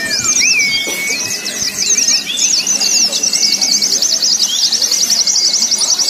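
Many caged pleci (white-eyes) singing at once in a bird-song contest, a dense mix of quick chirps and twittering, with one bird running into a fast, even trill over the second half. A low murmur of crowd voices sits beneath the song.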